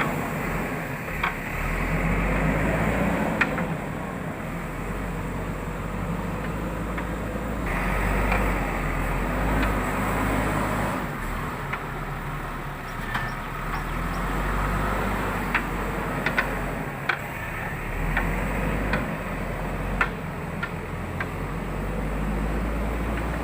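Diesel engine of a JCB backhoe loader running as it works, loading soil into a tipper truck. Its level rises and falls, with a few sharp clicks and knocks.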